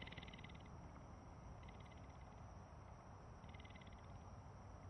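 Near silence: faint outdoor ambience with a soft pulsed trill, like a frog or insect call, repeating about every two seconds, each lasting about half a second.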